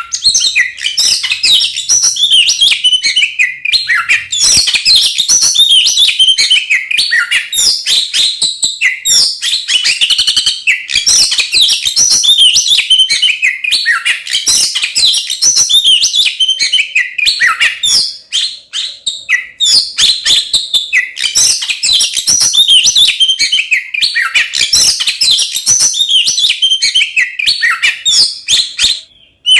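Oriental magpie-robin in full, aggressive song: a rapid, nonstop stream of varied whistles and chattering notes, the kind of song used to provoke other magpie-robins. It pauses briefly about 18 seconds in and breaks off just before the end.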